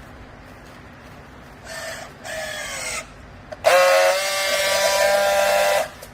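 High-pitched mechanical whine. Two short whines fall in pitch, then a louder steady whine lasts about two seconds and cuts off suddenly.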